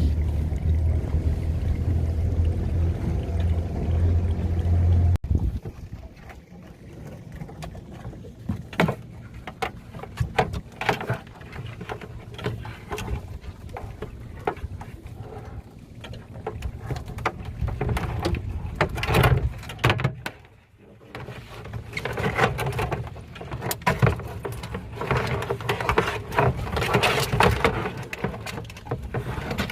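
A boat's motor running steadily with a low hum, cutting off abruptly about five seconds in. It is followed by irregular knocks, clicks and rattles.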